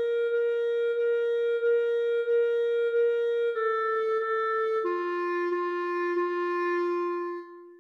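Clarinet playing long sustained notes, stepping down twice to a lower final note that is held for about three seconds and then stops shortly before the end, closing the piece.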